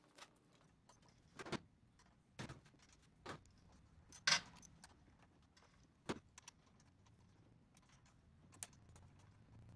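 Steel bolts clinking and tapping: about seven short, sharp, irregularly spaced metal clicks as loosened side-cover bolts are taken out by hand and set down on the table, the loudest about four seconds in.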